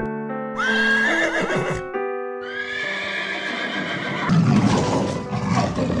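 A horse whinnying twice, each a loud wavering neigh of a second or two, over background music with steady notes.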